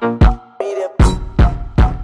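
Hip-hop music with repeated heavy bass-drum hits under a sustained melodic line.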